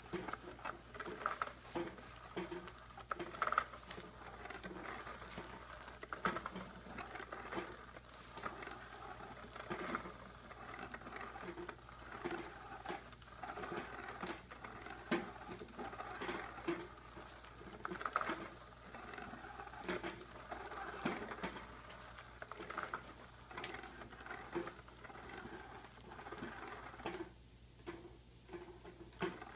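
Motorized cat toy running: a wand sweeping around under a nylon cover gives an irregular scratching and rustling of the fabric, with cat paws batting at the cover. It goes quiet briefly near the end.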